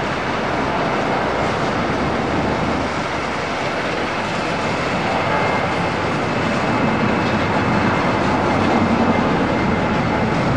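Twin-engine jet airliner climbing out after takeoff at climb power: a steady, dense jet-engine noise with a faint high whine, getting a little louder in the second half.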